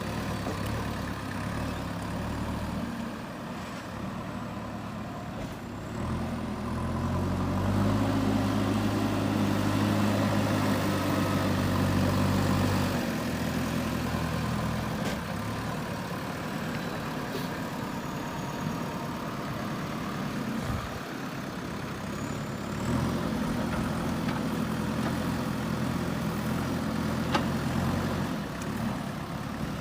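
JCB 3DX backhoe loader's diesel engine running at a low steady speed, twice revving up and holding higher revs for several seconds under working load, first about a quarter of the way in and again near the end, dropping back between.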